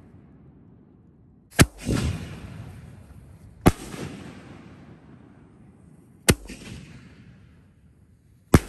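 Six-inch canister firework shells going off: four sharp booms about two seconds apart, each followed by a rumbling echo that fades away.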